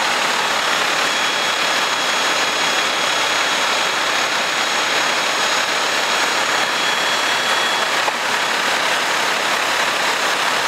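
Ferrara rear-mount ladder truck's diesel engine idling, a steady rushing engine noise with a faint high whine that stops about eight seconds in.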